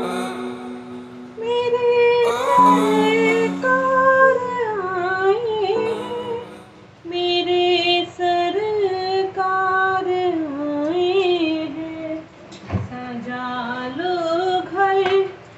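Music: a woman singing a slow, melodic song with long held notes, over a held instrumental backing in the first couple of seconds.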